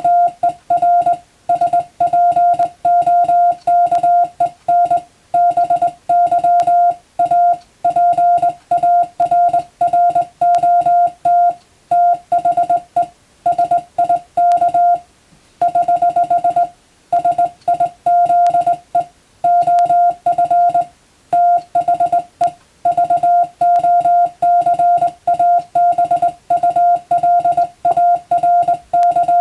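Morse code (CW) tone at about 700 Hz, keyed on and off in quick dots and dashes, with a short break about halfway through. It is Latin-alphabet telegram practice text for learning to receive by ear.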